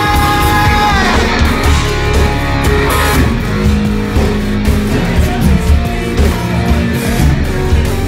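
Live rock band playing loud amplified music: electric guitar and drums with a steady beat. A long held note slides down and ends about a second in.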